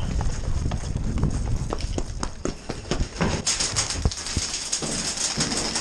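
Quick footsteps on concrete with the knocks and clatter of carried gear, irregular and fast, over wind rumble on the microphone; brighter and busier clicking from about halfway in.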